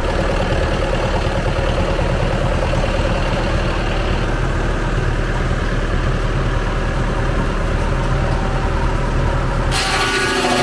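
An engine running steadily at idle, a low, even hum. Near the end the sound cuts abruptly to a different, brighter noise.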